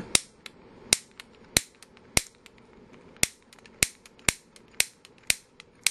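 Piezo grill ignitor being fired again and again, a run of about ten sharp snapping clicks roughly one every half second, each click sending a spark into a multimeter's test lead.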